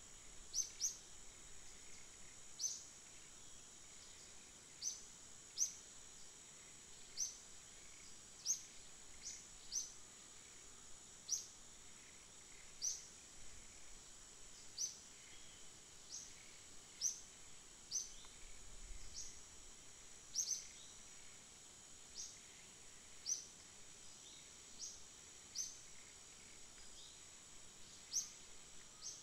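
Forest ambience: a steady, high-pitched insect drone, with a bird's short, high chirps repeating every second or two.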